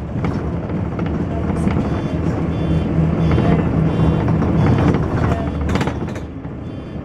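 Dennis Dart SLF bus's Cummins diesel engine heard from inside the saloon, working hard with a loud thrash and its cooling fan running, then easing off near the end.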